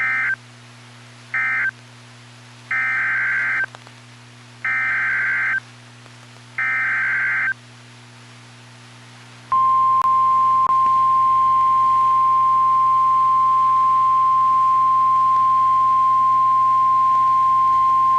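NOAA Weather Radio Emergency Alert System signals. First come two short, buzzy SAME digital data bursts, the end of a three-burst end-of-message code. Then three longer one-second SAME header bursts and, after a pause, the steady 1050 Hz warning alert tone starting about halfway in and holding for roughly nine seconds, announcing a new warning.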